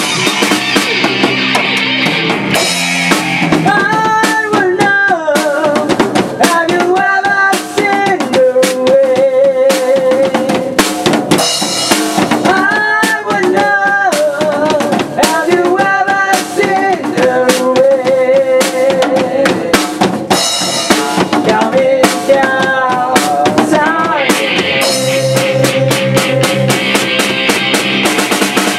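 A rock band playing live in a small rehearsal room: a Tama drum kit with steady drum and cymbal hits under electric guitars. From about four seconds in, a melodic line with bends and wavering held notes runs over the beat.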